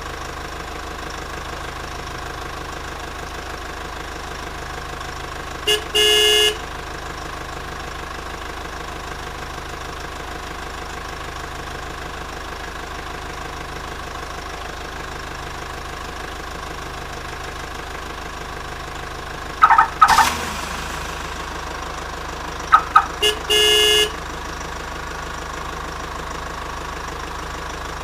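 Toy truck play with a steady truck-engine running sound and horn honks: a short toot then a longer honk about six seconds in, a pair of quick blips about twenty seconds in, and again a short toot then a longer honk near the end.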